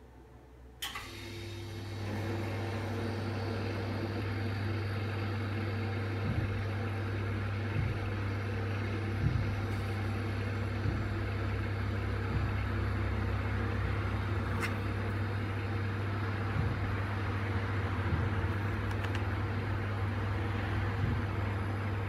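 Ericsson 888 mobile phone giving off a steady low buzz that starts just after a click about a second in, with small knocks of the phone being handled.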